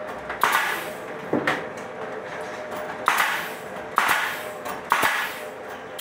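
Nail gun firing five times, about a second apart with one longer gap, driving nails through a board panel into its framing. Each shot is a sharp crack with a brief trailing rush.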